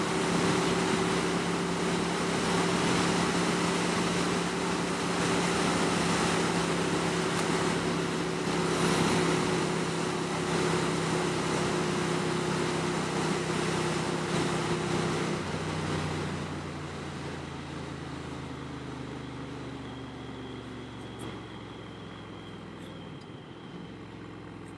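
Ducati motorcycle at a steady highway speed, its twin-cylinder engine humming under heavy wind and road noise. About two-thirds of the way through the wind noise drops and the engine note slowly falls as the bike slows.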